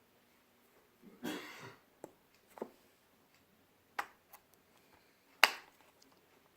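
Hands kneading and stretching slime softened with conditioner, shampoo and lotion: a short wet squelch about a second in, then several sharp pops, the loudest near the end.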